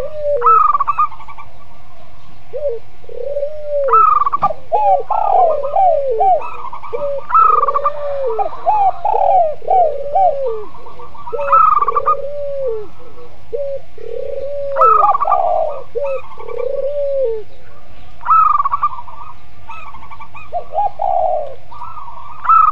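Several doves cooing over one another: spotted dove (tekukur), zebra dove (perkutut) and local collared dove (puter). There are low arched coos, quick falling runs of notes and higher trilled phrases, with one high phrase coming back about every three and a half seconds.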